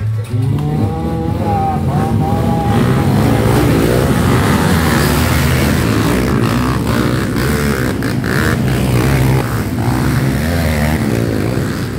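Several trail-bike engines revving hard, rising in pitch in the first couple of seconds as the bikes pull away from the start line, then running loud and steady as they accelerate along the dirt track.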